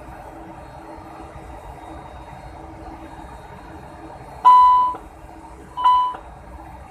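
Two short electronic beep tones, about a second apart, the first a little longer, from the Airbus A300-600's alert system, over a steady mechanical hum.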